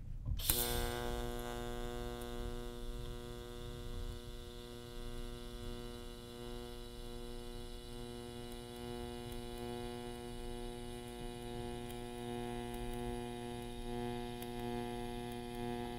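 TIG welding arc on stainless steel tubing. It strikes with a sharp crackle about half a second in, then holds a steady electrical hum and buzz over a hiss while the bead is laid.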